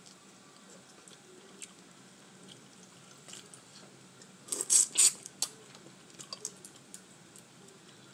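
Boiled crawfish being peeled by hand and eaten up close: small wet clicks and crackles of shell, with a brief loud burst of cracking and squishing about halfway through.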